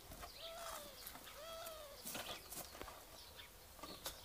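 Faint chicken calls: two drawn-out, arching notes about a second apart, with small birds chirping and a few sharp clicks.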